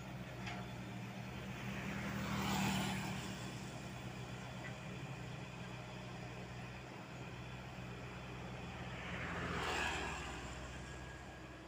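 Steady low drone of a Komatsu PC78UU mini excavator's diesel engine working. Two road vehicles pass close by, each swelling and fading, the first about two and a half seconds in and the second, a motorcycle, near ten seconds.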